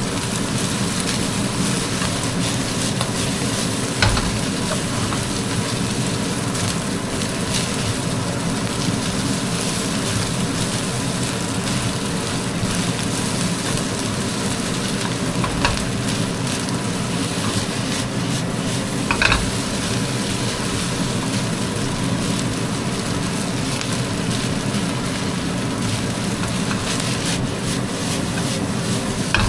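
Egg-coated rice stir-frying in a hot wok: a steady sizzle as the rice is stirred and tossed. A few knocks of the spatula on the wok about 4, 16 and 19 seconds in.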